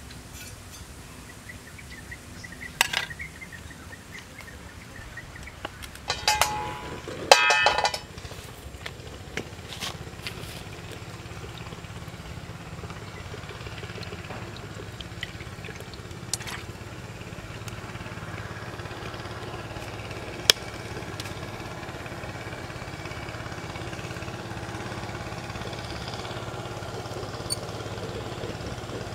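Metal cookware clanking and ringing as a steel wok and tray are handled, then cooking oil poured into the empty wok, over a steady low hum that slowly grows louder.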